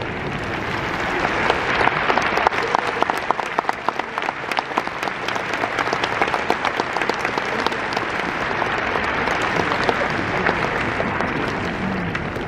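Large stadium crowd applauding, the clapping swelling about a second and a half in and easing off near the end.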